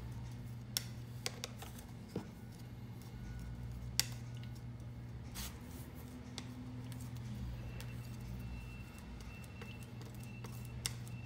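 Metal spatula scraping and clicking against a glass plate while working linseed oil into a fine powder to a putty-like paste. There are scattered sharp ticks, loudest about four seconds in, over a steady low hum.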